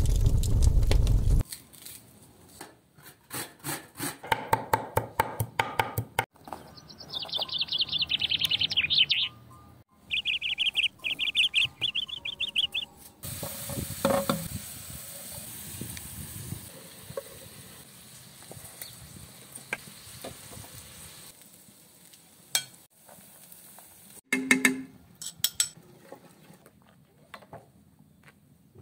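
Cooking sounds in quick succession: clinks and knocks of metal pots and lids, a spell of high bird chirping about a third of the way in, then a sauce sizzling in a shallow pan while a wooden spoon stirs it, with a few more knocks near the end.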